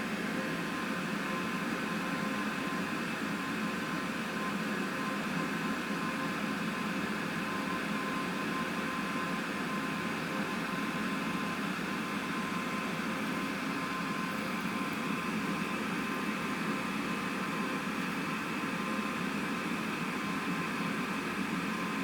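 A steady mechanical hum and hiss with a thin, high steady tone, unchanging in level.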